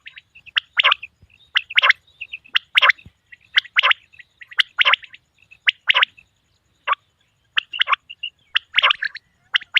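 Male common quail calling: short, sharp calls repeated about once a second, with softer short notes in between.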